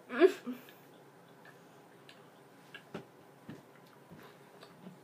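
A short falling groan at the start, then quiet with a handful of faint, scattered clicks and mouth noises while very sour bubble gum is chewed.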